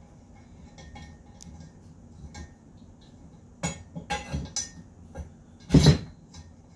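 Steel parts of a pinball playfield rotisserie frame clinking and knocking together as its bars are worked into place. A few sharp knocks come from about halfway on, the loudest near the end.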